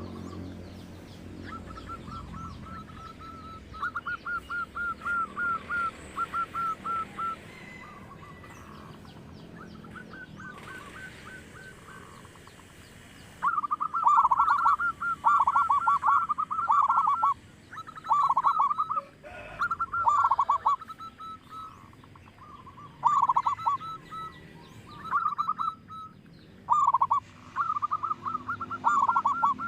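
Zebra dove (local perkutut) cooing: repeated phrases of quick, rattling staccato notes. It is softer for the first half and much louder from about halfway through, with faint high chirps of small birds behind it.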